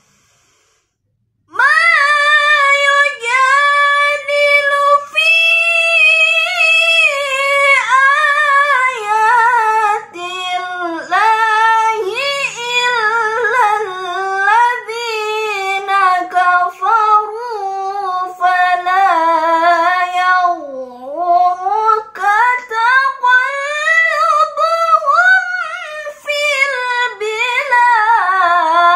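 A girl's voice reciting the Quran in the melodic tilawah style, drawing out long, ornamented, wavering notes. It comes in after about a second and a half of silence, starts high, sinks to its lowest pitch about three quarters of the way through, then climbs again.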